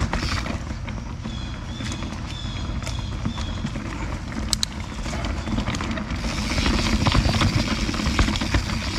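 Canyon Spectral CF mountain bike rolling over a dirt trail: tyres crunching and the bike rattling and knocking over roots and stones, with wind rushing on the microphone that grows louder about six seconds in as the pace picks up. A few short high chirps sound near the start.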